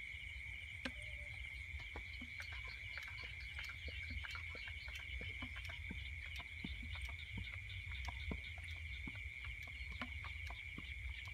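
Night chorus of crickets and other insects: a steady high trill with a pulsing higher chirr above it. Scattered light clicks and a low rumble sit underneath.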